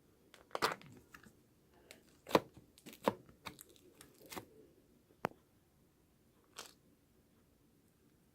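Slime being handled: a handful of irregular sharp clicks and crackles, the loudest about two seconds in, thinning out after about seven seconds.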